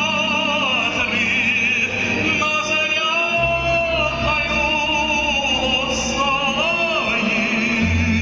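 A man singing a song with a strong vibrato, accompanied by a bayan (button accordion) holding sustained bass notes that change every few seconds.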